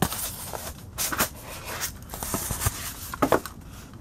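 A few light clicks and knocks from model train cars and parts being handled and set down, over low room hiss.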